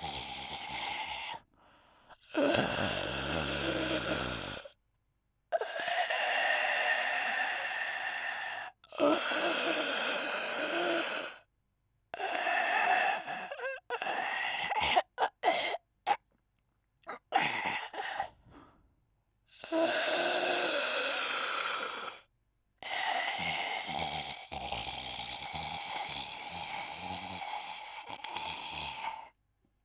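A man doing loud, pitched, wheezing snores, one long breath every few seconds, with a few short snorts in the middle. Each breath cuts off abruptly into dead silence.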